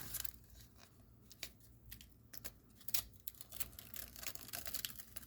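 Paper stickers being handled and sorted by hand: scattered light rustles and small clicks of sticker paper.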